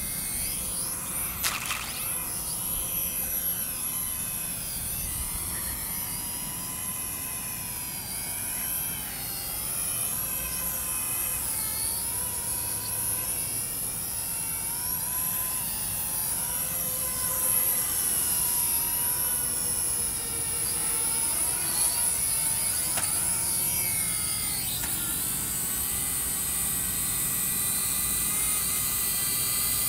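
A JJRC 8HC toy drone's small electric motors and propellers give a high buzzing whine. Its pitch keeps wavering up and down as the throttle and distance change.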